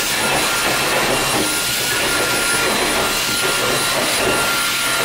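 A kennel cleaning vacuum's motor running steadily: a constant rushing of air with a thin, steady high whine on top.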